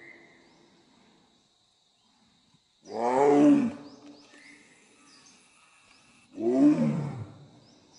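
Tiger roaring twice, about three and a half seconds apart, each roar a short, loud call that falls in pitch.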